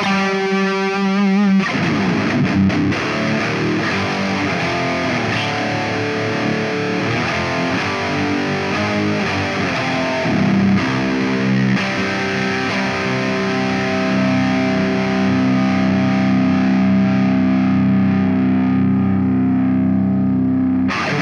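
High-gain distorted electric guitar through a digital model of an EVH 5150 III amp, playing riffs with a held chord at the start, then a long sustained chord that rings on through the second half.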